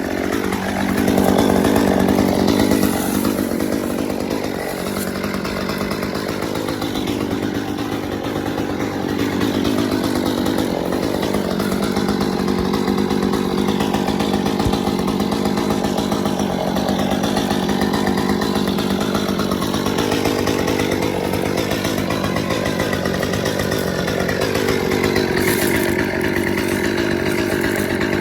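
Chainsaw running hard and cutting through a pair of Nike Air VaporMax sneakers, its engine pitch wavering up and down as it bites.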